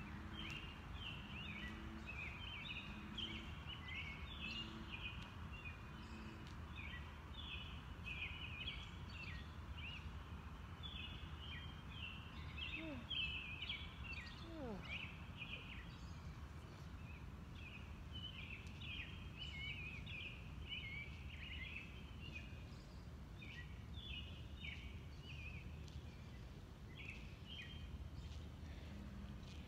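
Night chorus of many small calling animals: overlapping short, high chirps keep going without a break. Two brief falling glides sound about halfway through.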